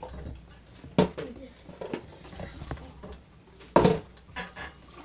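Plastic water bottle flipped and landing with a hard thud, twice: about a second in and again near four seconds, the second time on top of a plastic bin.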